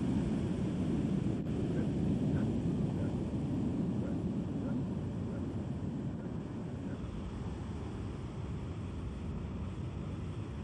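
A steady low rumble with no clear rhythm or pitch. It swells in at the start and eases off a little after the first few seconds.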